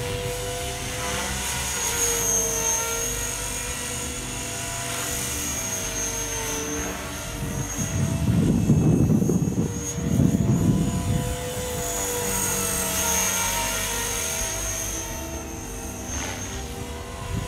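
Blade 450 3D electric RC helicopter in flight: the whine of its motor and rotors rising and falling in pitch as it manoeuvres. About eight and ten seconds in, two loud low rushes of noise briefly cover the whine.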